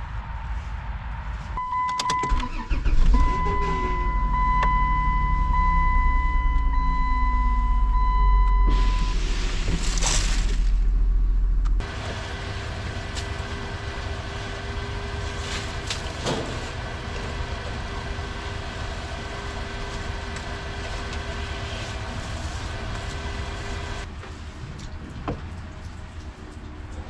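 Van engine starting and running, with a steady electronic dashboard tone sounding for several seconds after the start.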